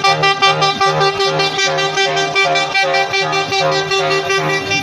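A matatu minibus's horn sounding in rapid, even pulses, about four a second, over a steady held tone.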